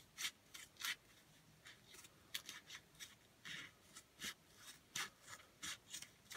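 Scissors snipping a strip of foil tape: a run of many short snips at an uneven pace, faint.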